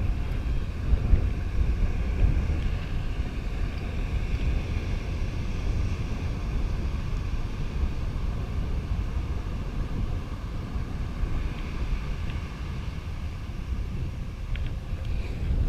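Wind buffeting the microphone on a beach: a steady low rumble that eases slightly near the end.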